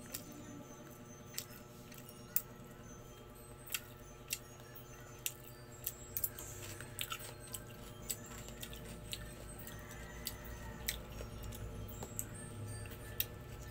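A person chewing and eating food off a spoon, with scattered sharp clicks at irregular intervals.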